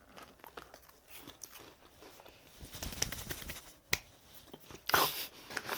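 Quiet eating and snack-packet handling: faint chewing with scattered small clicks, a sharp click about four seconds in, and a short crinkle of the plastic snack wrapper near the end.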